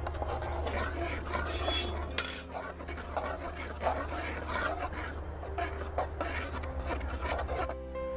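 Metal spoon stirring and scraping a thick paste in a shallow metal pan: a rough, continuous rasping with sharp clicks of the spoon against the pan, stopping shortly before the end.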